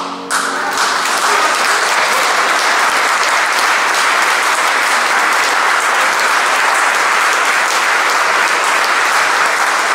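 Audience applauding: dense clapping that swells within the first second and then holds steady.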